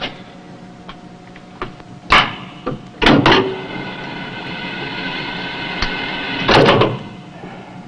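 Sharp metallic clicks of a cigarette lighter being opened and struck, loudest about two and three seconds in. A steady high tone follows for about three seconds, and a loud rushing burst comes near the end.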